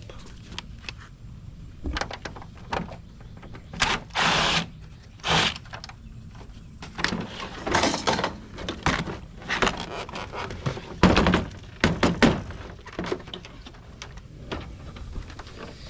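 Irregular knocks, clicks and short scrapes of plastic and metal parts as a Panasonic printer's casing is pried and pulled at by hand. The loudest knocks come about eleven to twelve seconds in.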